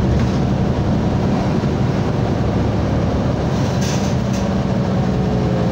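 City transit bus under way, heard from inside the cabin: steady engine hum and road noise, with a brief rattle about four seconds in.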